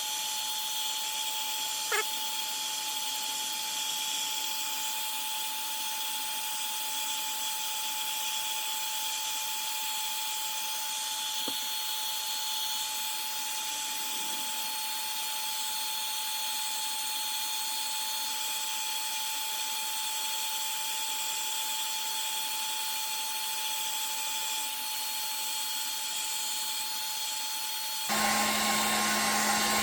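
Electric hot-air blower running steadily on its low setting, a whooshing blow with a thin steady whine, warming an adhesive grip wrap so it sticks to a pistol frame. It gets louder and changes pitch shortly before the end.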